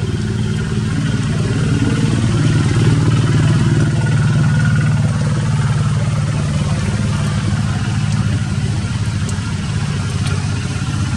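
An engine running steadily with a low, even hum, growing a little louder about three seconds in and then holding.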